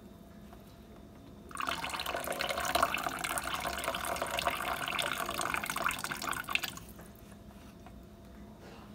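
Hot water pouring from a stainless steel saucepan into a kitchen sink as boiled ramen noodles are drained. The pour starts about a second and a half in and runs for about five seconds before it stops.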